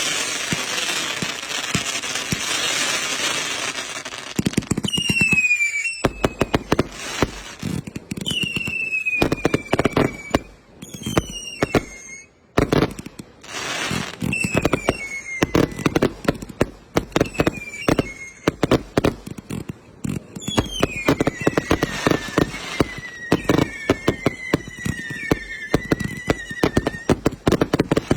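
Fireworks going off: a hissing spray for the first few seconds, then a rapid run of sharp cracks and bangs, with shrill whistles that fall in pitch again and again.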